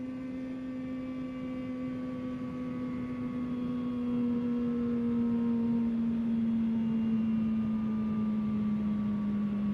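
Honda CBR650R inline-four engine running at steady high revs under way, a smooth hum whose pitch slowly sinks as the revs ease down.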